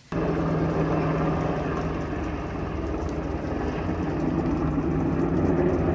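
An engine running steadily, with a held low hum under a broad rushing noise.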